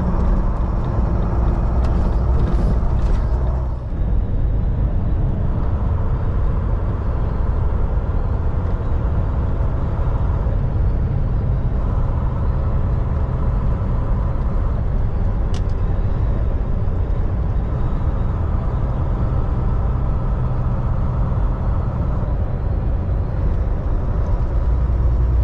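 Semi truck on the move, heard from inside the cab: a steady low diesel engine drone with road noise, and a brief high hiss about two to three seconds in.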